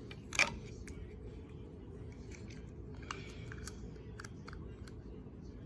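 Packaging of a Teeny Mates collectible packet being handled, crinkling: one sharp, loud crackle about half a second in, then scattered small clicks and rustles, with a brief crinkly patch about three seconds in.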